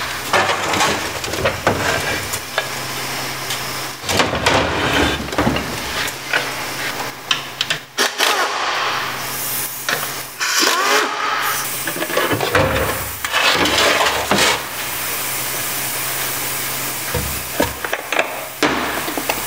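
Metal knocks, clanks and scrapes as a 700R4 automatic transmission is tipped on a steel bench and its oil pan is unbolted and lifted off. There are stretches of steady rushing noise between the knocks.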